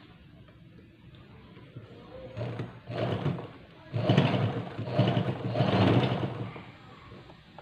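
Electric sewing machine stitching a cotton t-shirt side seam, running in several short bursts that start about two seconds in.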